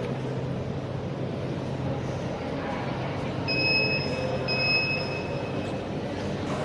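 The door-lock system's electronic buzzer sounds two long, high beeps, back to back, about three and a half seconds in, over a steady low hum.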